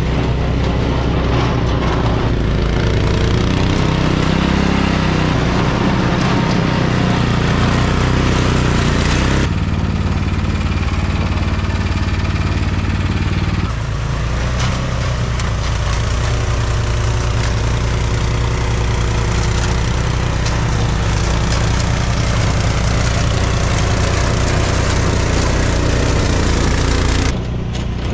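Engine running steadily with wind-like hiss over it. The sound changes abruptly three times, about 9, 14 and 27 seconds in.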